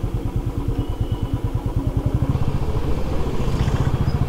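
Motorcycle engine running at low road speed, heard from the saddle as a steady, rapid low pulsing, getting a little louder about two seconds in.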